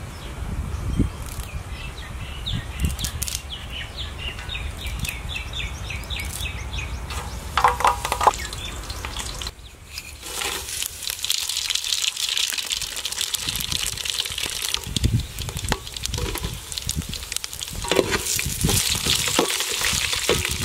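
Curry leaves and whole spices sizzling in hot oil in an aluminium pot, starting about halfway through, with a metal slotted spoon scraping the pot as they are stirred near the end.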